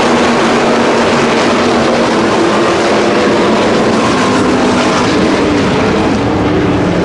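A pack of dirt-track race cars racing together: several engines running at once in a loud, steady, dense mix.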